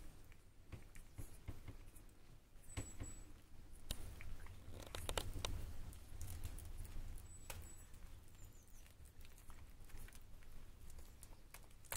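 Newborn puppies suckling at their mother: faint, irregular wet smacking and clicking from many small mouths, with two brief high peeps.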